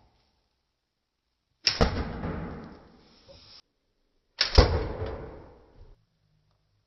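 K'nex rubber band gun firing twice, about three seconds apart. Each shot is a sharp crack followed by a fading rush about a second and a half long.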